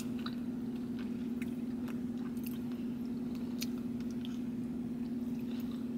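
A person chewing and biting a mouthful of braised lamb and rice close to the microphone, with scattered light clicks, over a steady low hum.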